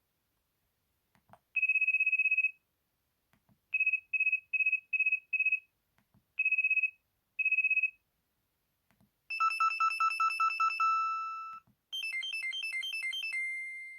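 Mitsubishi D504i flip phone's built-in pattern ringtones playing one after another: electronic beeps that warble rapidly, first one long beep, then a run of five short ones, then two, then a two-pitch trill and a quick stepping figure near the end. A faint click comes before each pattern.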